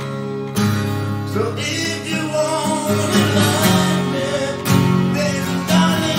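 Recorded music: a slow rock ballad played on acoustic guitar.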